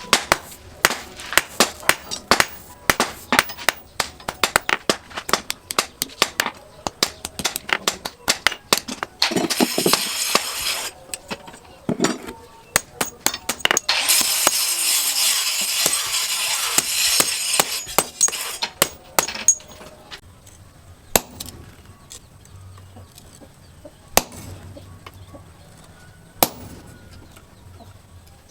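Hand hammer striking steel on an anvil in quick, ringing blows, forging a blade from chainsaw steel. About a third of the way in the blows give way to a steady rush of noise lasting a few seconds, followed by a few scattered strikes.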